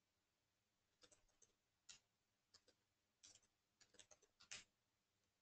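Faint computer keyboard keystrokes: a dozen or so quick clicks in uneven clusters, starting about a second in, as a username and password are typed.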